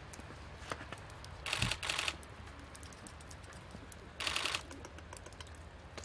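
Ring-tailed lemur biting and chewing a crisp lettuce leaf: two short bursts of crunching, about a second and a half in and again after four seconds, with small clicks in between.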